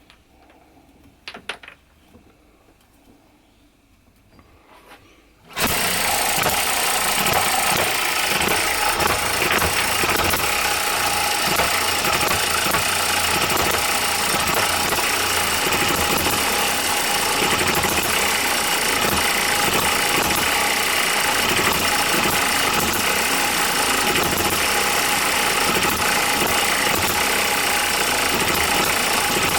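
OKMO Microcosm M92 miniature hit-and-miss engine starting on a rope pull: quiet with a couple of faint clicks at first, then the engine catches suddenly about five seconds in and runs on steadily and loudly.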